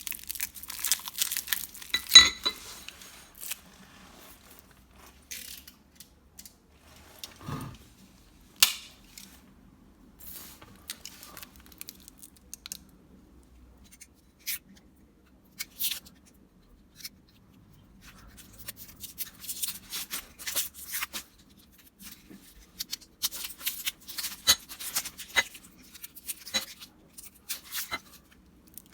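Scattered handwork sounds at a workbench: irregular scrapes, clicks and light knocks, with a sharp knock about two seconds in and a duller thump a few seconds later.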